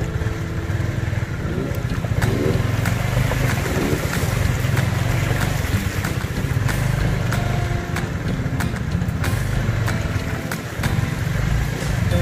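Motorcycle engine running on the ride, a steady low rumble with frequent knocks and rattles throughout.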